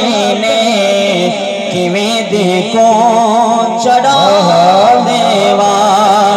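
A man's voice singing a naat in long, wavering, ornamented held notes, amplified through a PA loudspeaker.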